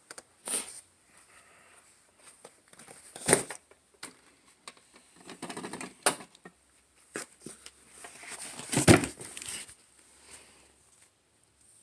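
Cardboard shipping box being handled for unboxing: scattered knocks and taps with soft scraping and rustling between them, the loudest knock about nine seconds in.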